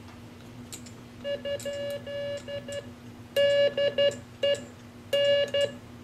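Morse code keyed on a Johnson Valiant tube transmitter in CW mode with a paddle: a steady tone of about 600 Hz broken into short and long dits and dahs, starting about a second in, with a few sharp clicks from the paddle and a steady low hum underneath.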